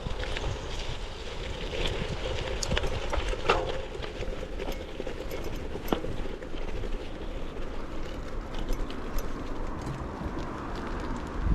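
A train running past, a steady rumble with scattered sharp clicks from the wheels and rails.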